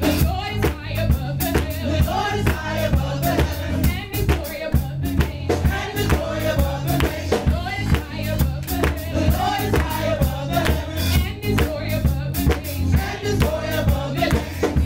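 Live gospel music: several singers on microphones over a band, with bass and drums keeping a steady beat.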